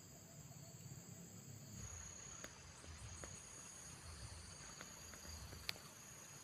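Faint, steady high-pitched chorus of insects in tropical forest undergrowth, with a few sharp faint ticks.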